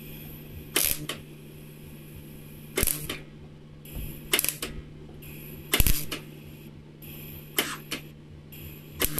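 MIG welder tack-welding thin sheet steel: about eight short crackling arc bursts, each well under a second, spaced roughly a second apart, as the weld is laid a little dot at a time. A steady low hum runs underneath.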